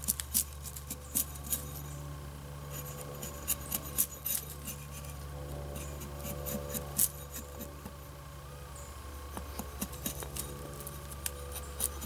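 A bare axe head, held in the hand without its handle, shaving and scraping a split-wood handle blank. Short sharp cutting strokes and scrapes come in quick runs with short pauses between them.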